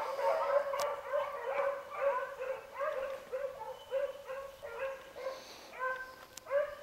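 A pack of beagles baying on a rabbit chase: several hounds giving short, repeated, overlapping barks, about two or three a second, fading near the end.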